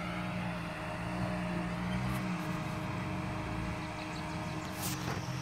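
Jeep Wrangler's engine running at low revs as it crawls over rocks, its note easing off about two seconds in. A single sharp click near the end.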